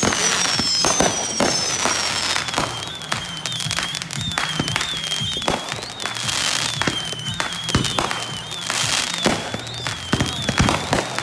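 Consumer fireworks cakes and mortars going off in quick succession: many bangs and crackles, with a high wavering whistle running through and a few falling whistles near the start.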